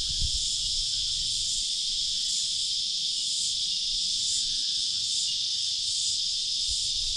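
Dense chorus of cicadas in massive numbers: a loud, steady, high-pitched drone that pulses slightly in its upper part.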